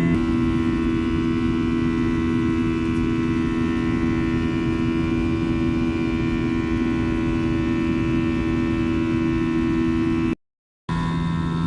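Airbus A321 cabin noise in flight: the steady drone of the jet engines and airflow, with a steady multi-tone hum over it. It cuts out for about half a second near the end and comes back with a slightly different hum.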